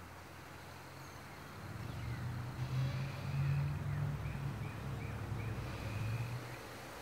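A motor vehicle's engine passing by: a low hum that swells about a second and a half in and fades away near the end. Over it in the second half comes a short run of about five high chirps.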